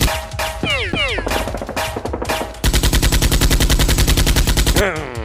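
Rapid automatic gunfire, about eleven shots a second, in two bursts with a short gap between them. There is a swooping, gliding sound in the gap and again near the end.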